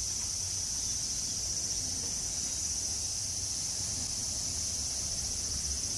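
Steady chorus of summer insects, one continuous high drone that holds unchanged throughout.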